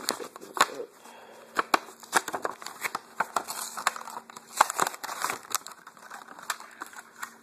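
Clear plastic blister packaging being pried open and handled, with many irregular sharp crackles and clicks of the stiff plastic and cardboard backing. The loudest snaps come about half a second in and just after the middle.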